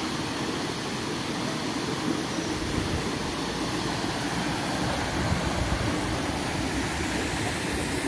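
Steady rushing of a waterfall and its stream, with low wind buffets on the microphone from about two and a half seconds in.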